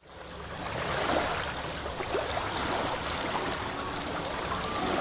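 Sea water rushing and splashing, fading in over the first second.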